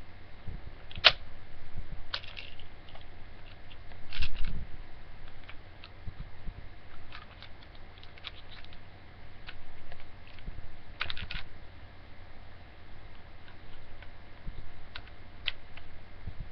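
Gas-powered BB pistol being handled: scattered sharp clicks and knocks, some in quick clusters, the sharpest about a second in and a heavier knock about four seconds in. A low steady hum runs underneath.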